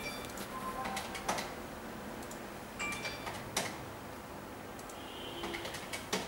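Handling noise from an Air Jordan 4 Denim sneaker being turned over in the hands: scattered light clicks and rustles, with a few brief high tones.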